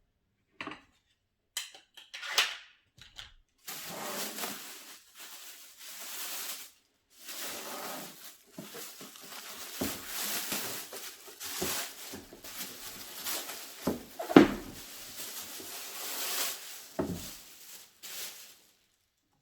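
Handling of a plastic aerobic step platform and its packaging: ongoing rustling, with a few sharp knocks of plastic parts, the loudest about 14 seconds in.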